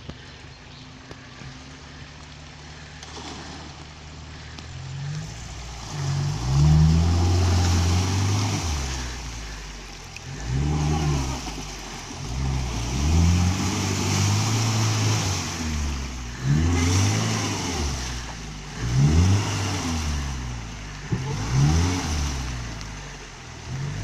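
Lada Niva engine revving hard in about six repeated bursts, each pitch rising then falling, as the 4x4 churns through deep mud and water; water and mud splash and hiss along with the revs. The engine runs quietly for the first few seconds before the revving starts.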